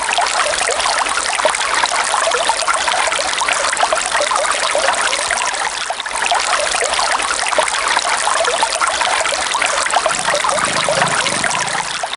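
Stream water trickling and babbling steadily, a continuous bubbling rush.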